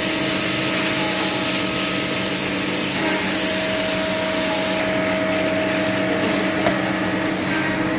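Cylindrical grinding machine running: a steady motor hum under a strong hiss from the grinding wheel working a metal workpiece flooded with coolant. About halfway through, the hiss falls away, leaving the machine's steady hum.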